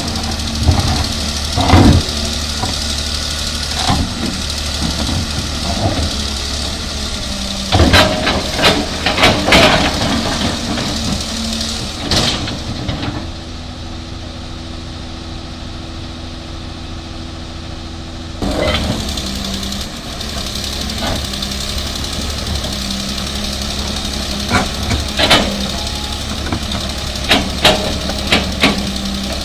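Heavy diesel engine of a 330 excavator running steadily while loading trucks with gravel, with loud knocks and clanks scattered through, several close together. For several seconds in the middle it goes quieter and steadier with no knocks.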